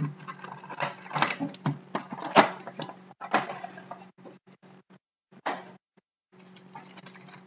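Hands handling a trading-card box and its packaging: irregular crinkling, scraping and light taps, thinning out about halfway through, over a steady low electrical hum.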